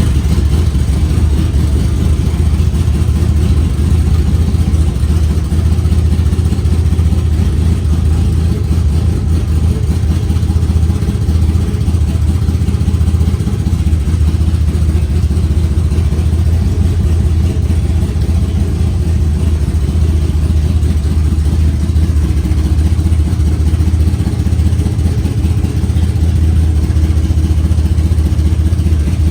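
Commodore project car's engine idling steadily and loudly, with a strong deep low note.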